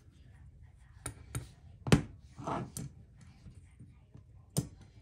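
About five sharp metallic clicks and taps as the partly disassembled Chris Reeve Large Sebenza's titanium handle and loose parts are handled and knocked together. The loudest click comes about two seconds in.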